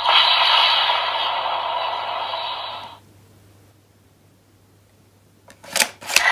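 DX Valvarusher toy's electronic sound effect, a noisy blast from its built-in speaker that fades and cuts off about three seconds in. Near the end comes a few plastic clicks as a Ride Chemy trading card is slid into the toy's card slot.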